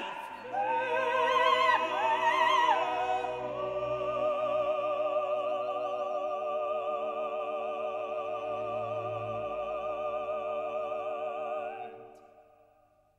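Operatic singing with orchestral accompaniment: a voice with strong vibrato moves through a few notes, then holds a long final note before the music fades out near the end.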